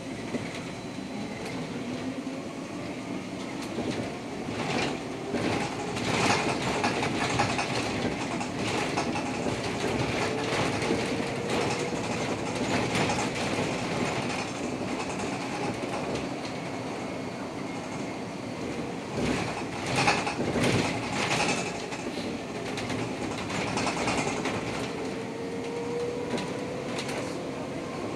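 Škoda 32Tr SOR trolleybus on the move, heard from inside: steady running noise and body rattle, with a few louder bumps. The electric traction drive whines, rising in pitch twice as it pulls away.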